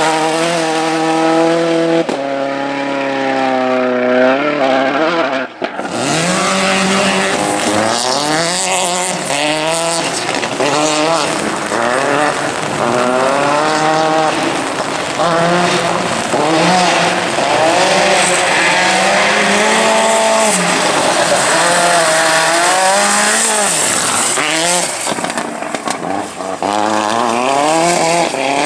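Hyundai i20 G4 rally car driven flat out on gravel stages, its engine revving hard through the gears so that the pitch climbs and drops with each shift and lift, over tyre and gravel noise. The sound breaks off briefly about five seconds in, where one pass is cut to the next.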